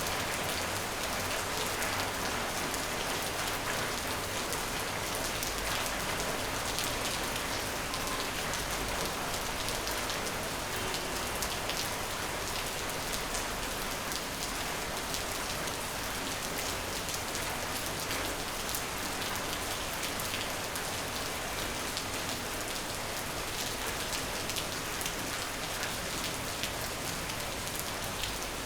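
Steady rain falling on a surface, an even hiss with many small drop impacts.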